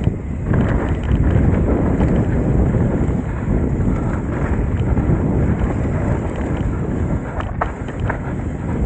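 Wind buffeting the camera microphone over the rumble of a Trek Top Fuel 8 mountain bike's tyres on a dirt forest trail, with a few sharp clicks from the bike.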